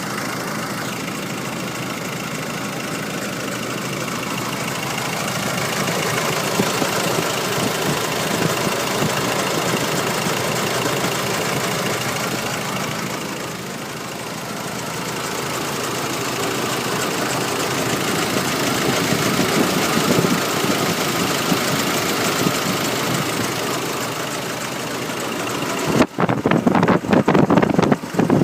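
Nissan YD25 2.5-litre four-cylinder diesel idling with a steady clattering noise whose cause is unknown; the owner suspects the injectors, timing chain, belts, pulleys or turbo. About two seconds before the end, loud uneven buffeting on the microphone takes over.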